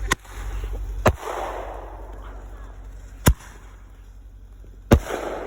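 Fireworks exploding nearby: four sharp bangs spread over about five seconds. The second and last bangs each trail off with a noisy tail lasting about a second.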